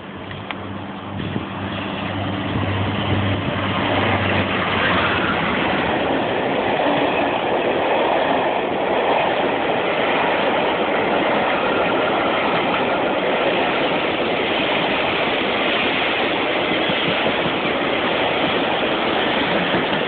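Class 52 'Western' diesel-hydraulic locomotive D1015, with twin Maybach engines, running through at speed. Its steady engine drone is heard for the first few seconds as it passes, then gives way to the steady noise of its coaches' wheels on the rails as the train runs by.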